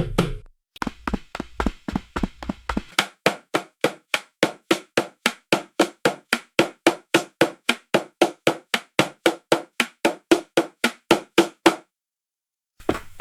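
Footsteps of someone running on wooden boards: quick, even thuds about four a second, with a low rumble under the first few steps. The steps stop abruptly near the end.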